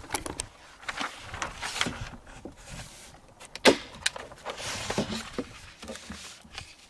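Paper target being spread over a wooden board and fastened with a hand stapler: paper rustling and a series of sharp stapler snaps, the loudest about three and a half seconds in.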